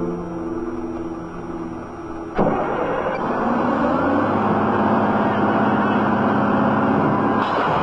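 A few seconds of music, then a crawler loader's diesel engine starts abruptly about two and a half seconds in and runs steadily. The lift arms rise on their own as it runs, because the lift lever was left in the raised position.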